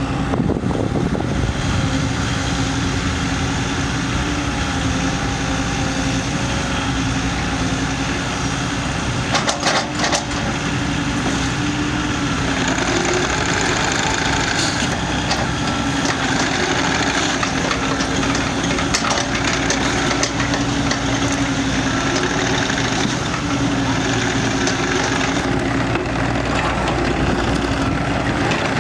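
Diesel engine of a 2013 Cat 305.5D CR mini excavator running steadily, with a short cluster of sharp knocks about nine to ten seconds in.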